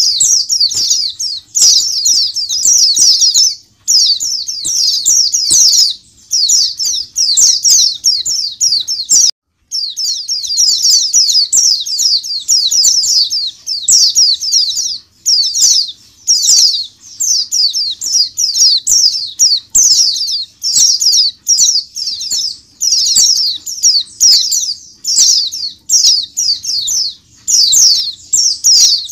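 A flock of caged white-eyes (pleci) chirping together: a dense, fast, high-pitched twittering chorus with a few brief pauses, one of them a complete break about nine seconds in.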